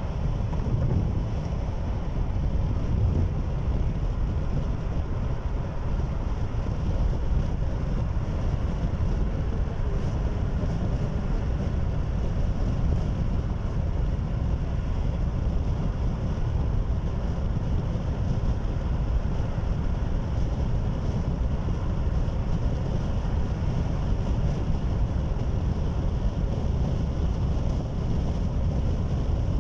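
Steady low road and engine rumble heard from inside a car travelling at highway speed.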